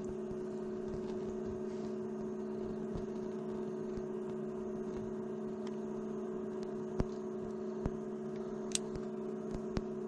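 A steady electrical hum made of two held tones, with a few faint clicks in the second half.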